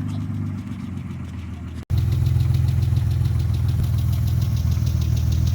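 Mitsubishi 3000GT VR-4's freshly built twin-turbo V6 idling steadily. The sound cuts out for an instant just under two seconds in, then comes back louder.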